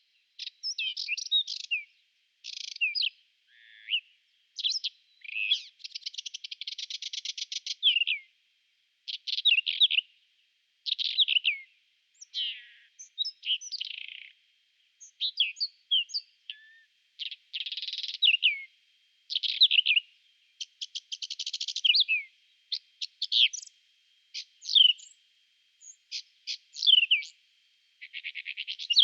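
Whinchat singing: a run of short, varied, scratchy phrases a second or so apart, several of them fast rattling trills, with brief pauses between.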